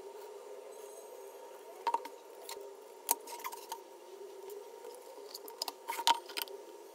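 Scattered light clicks and taps of small hard parts being handled, with a faint steady hum underneath; the clicks come singly at first, then in a quick cluster near the end.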